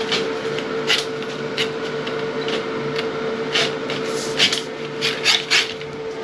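Drain snake working in a toilet drain line: a steady motor hum with irregular scraping and knocking from the cable, several sharper scrapes from about three and a half seconds in.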